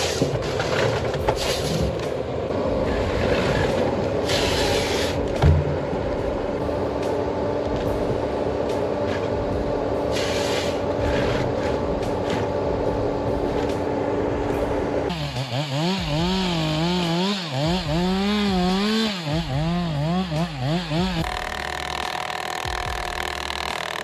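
Forestry harvester working: its engine and hydraulics run steadily while the harvester head grips, feeds and saws conifer stems, with a sharp crack about five seconds in. Past the middle, a tone wavers up and down for several seconds.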